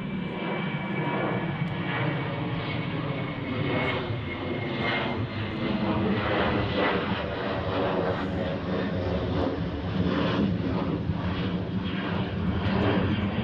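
Twin-engine jet airliner flying low overhead, its engines making a steady, continuous rumble with a thin high whine.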